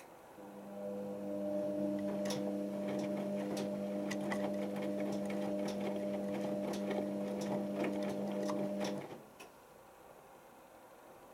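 Hotpoint First Edition HVL211 washing machine tumbling its load during the heating phase of a 90 °C cotton wash: a steady motor hum with scattered clicks from the load and drum. It starts just after the beginning and stops suddenly about nine seconds in as the drum comes to rest.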